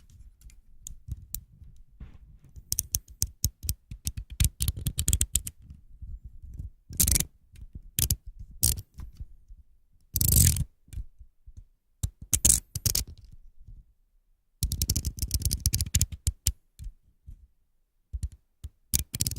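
Box cutter handled close up: runs of rapid ratcheting clicks as the snap-off blade is slid in and out, in bursts with pauses between, and a few single louder strokes, the loudest lasting about half a second near the middle.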